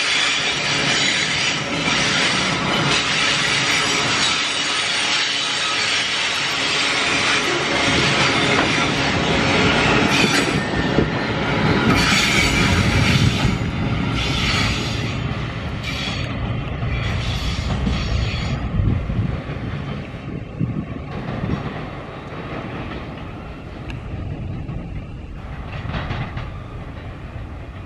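Container wagons of a freight train rolling past on steel wheels, a steady heavy rail noise. The noise grows fainter in the second half as the end of the train moves away.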